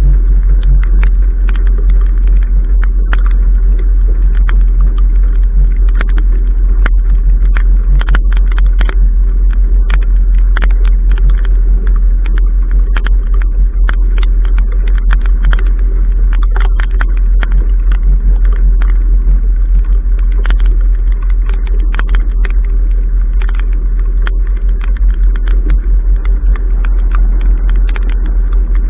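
Strong wind buffeting the microphone of a bow-mounted camera: a loud, steady low rumble. Frequent sharp ticks of water drops striking the camera housing run through it.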